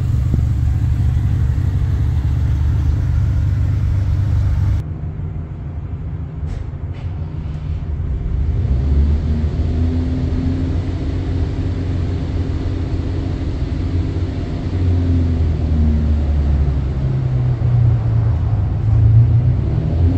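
Lamborghini Countach V12 engine idling with a deep, steady exhaust rumble. It runs on after a change of recording about five seconds in, its note swelling a little a few times.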